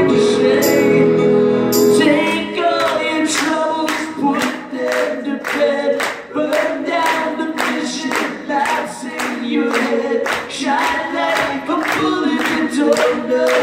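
Live pop-rock song: a held chord from the band cuts off about two seconds in, leaving several voices singing together over steady hand claps in time, a little over two claps a second.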